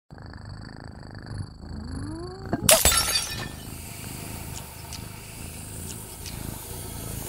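Cartoon sound effects: a cat purring, then a rising swoop and a vase shattering loudly about three seconds in. A steady hiss of sugar pouring from a tipped bag follows, with a few faint ticks.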